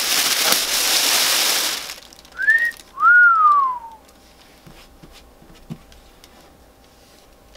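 Plastic bag crinkling as it is pulled off a heat press, then a two-note wolf whistle: a short rising note, then a longer one that rises and falls away. After that it is quiet apart from a few faint ticks.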